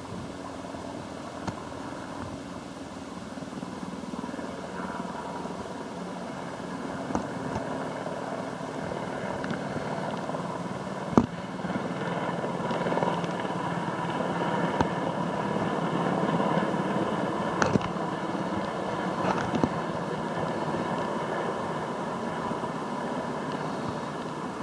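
Three UH-60 Black Hawk helicopters flying over in formation, a steady rotor and turbine noise that grows louder as they approach and eases a little near the end. A few brief clicks cut through it, the loudest about halfway through.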